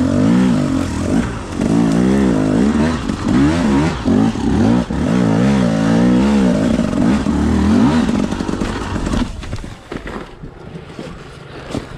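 Dirt bike engine revving up and down in repeated quick throttle blips on a rocky climb, then falling quieter about nine seconds in.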